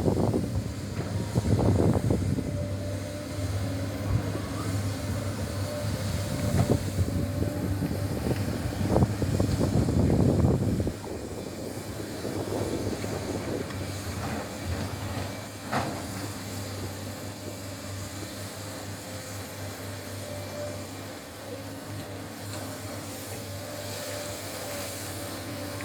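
Sany excavator's diesel engine running with a steady hum, over scraping, rattling and metal clanks as the bucket digs and loads ore. About eleven seconds in it gets quieter, leaving the engine running with one more clank a few seconds later.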